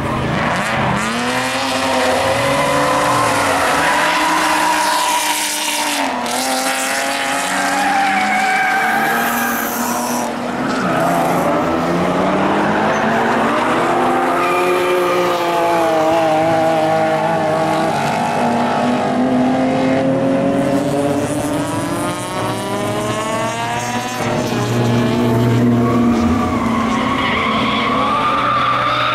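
Drift cars, BMW six-cylinders among them, with their engines revving hard and dropping back over and over and their tyres squealing as they slide sideways through the corners.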